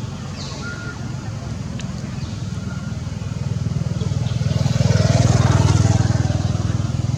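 A motor vehicle's engine passing, a low pulsing hum that grows louder to a peak about five seconds in, then eases off.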